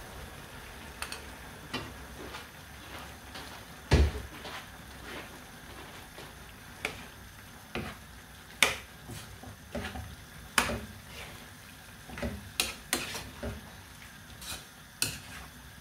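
A utensil clinking and scraping against a pan at irregular intervals while chicken hearts are stirred in sauce, with one louder knock about four seconds in. A faint steady sizzle of the cooking pan runs underneath.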